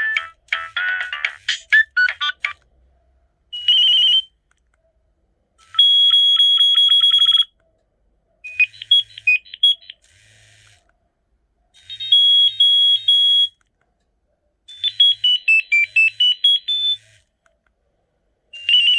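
Nokia 3510i mobile phone playing a series of short ringtones and alert tones through its small speaker, one after another with silent gaps between. A melodic tune stops about two and a half seconds in, followed by several brief electronic beeping and trilling patterns and a quick stepping-down run of notes.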